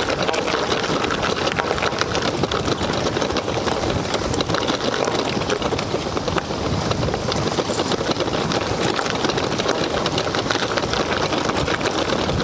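Loaded bicycle riding over a rough grassy track: a steady, rapid rattle and clatter from the bike and its bags, with tyre noise over the uneven ground.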